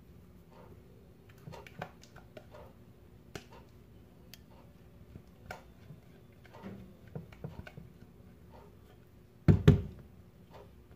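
A spatula scraping and tapping against a bowl as thick semolina batter is poured out into a glass baking dish, with small scattered clicks. Near the end come two loud knocks in quick succession.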